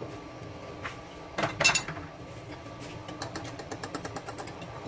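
Beaten egg being whisked with a metal utensil in a small ceramic bowl: fast, even clinks of metal on the bowl, starting about three seconds in. Before that, a few separate knocks and a louder ringing clink about a second and a half in.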